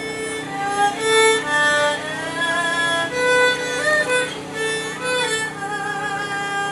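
Music: a bowed string instrument plays a melody of held notes with slides between them over a steady low drone.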